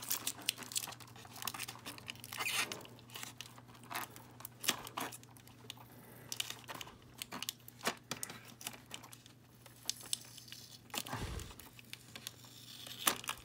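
A small piece of adhesive tape being picked at and peeled off a plastic toy house floor: faint, irregular crackling, scratching and clicking of tape and fingers on plastic, with a low thump near the end.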